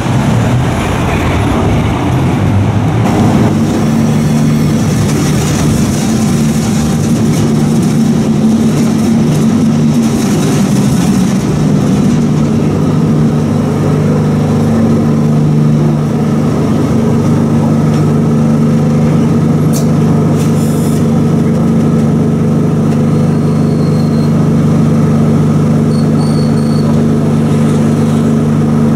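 A classic two-axle tram running along its route, a dense rumble with a steady low hum that sets in a few seconds in. There is a single sharp click about twenty seconds in.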